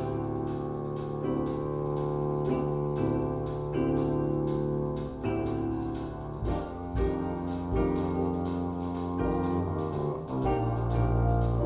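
Jazz played from a record through a turntable hi-fi and Tannoy Stirling loudspeakers: sustained piano chords over a bass line, with a steady ride-cymbal pulse of about three strokes a second.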